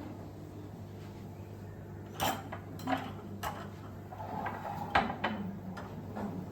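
Kitchen things being handled: a handful of sharp knocks and clinks, the loudest about five seconds in, over a steady low hum.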